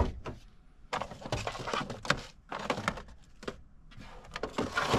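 Hands rummaging among items in a truck cab's storage to get out a pack of canned tuna: a series of irregular clicks, knocks and rustles as things are moved and handled.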